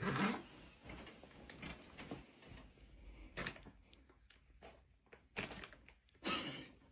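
Faint, irregular clicks and knocks, with a few short louder noisy bursts, about three and a half, five and a half and six and a half seconds in.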